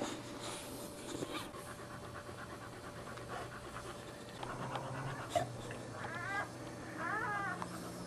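Newborn boxer puppies giving a few short, squeaky, rising-and-falling cries in the second half, over the mother boxer's steady panting.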